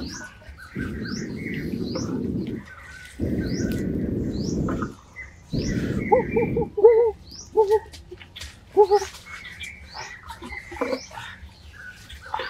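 Wild birds chirping and calling, with a short pitched call repeated several times around the middle. Four stretches of low rumble, each one to two seconds long, fill the first half, and a few sharp knocks stand out.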